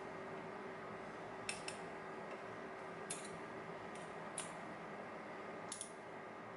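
Light metallic clicks and taps of small lock pins and tools being handled during a lock teardown, about seven scattered clicks, some in quick pairs, over a steady faint hum.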